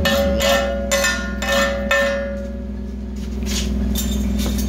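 Hammer blows on steel plate, about two a second, each one ringing with a bell-like metallic tone; a few fainter strikes come near the end. A steady low machine hum runs underneath.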